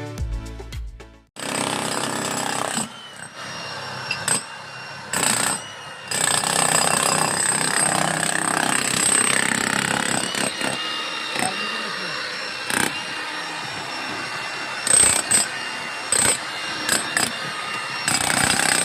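Power tool cutting into concrete: a dense grinding noise with a steady high whine that dips and surges a few times. Background music cuts off about a second in.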